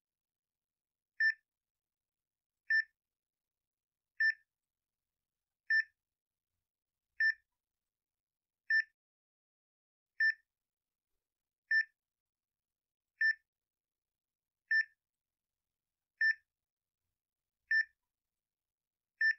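Boston Scientific implantable cardioverter defibrillator (ICD) patient alert: short, single-pitched beeps evenly spaced about one every one and a half seconds. The alert is the device's sign of a condition such as safety mode, battery depletion, a fault code or a self-diagnostic finding, which calls for a check at the ICD clinic.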